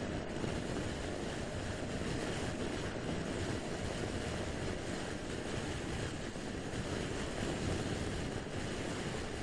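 Steady rush of wind and road noise from a scooter cruising at motorway speed, with wind buffeting the camera's microphone.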